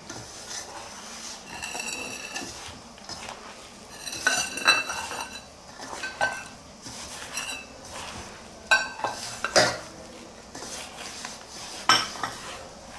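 Hand mixing dry millet flour and chopped vegetables in a stainless steel bowl: a soft rubbing rustle broken by repeated metallic clinks, several of them ringing briefly, as the hand knocks against the bowl.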